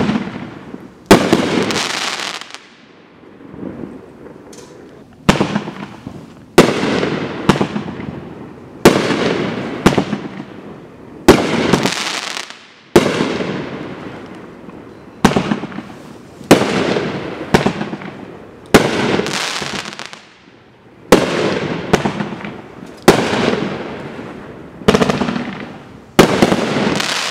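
Dominator Four Kings 500-gram consumer firework cakes firing shot after shot, about one a second. Each shot is a sharp report with a noisy tail that fades over about a second. There is a pause of about two seconds near the start as one cake (Phoenix) burns out and the next (Tiger) begins.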